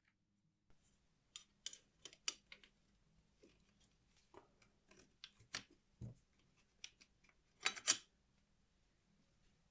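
Irregular light clicks and clinks of small metal mechanism parts being handled, with a louder brief rattle nearly eight seconds in.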